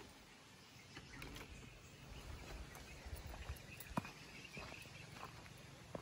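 Faint outdoor background noise with a few scattered light clicks, the sharpest about four seconds in.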